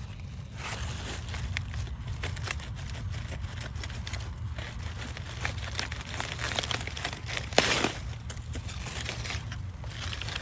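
Rustling and crinkling with many small scattered clicks, and one louder rustle about seven and a half seconds in.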